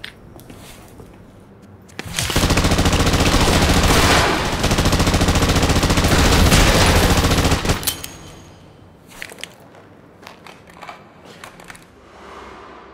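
A long burst of automatic rifle fire, rapid shots running together for about five and a half seconds, starting about two seconds in. Scattered sharp knocks and clicks follow it.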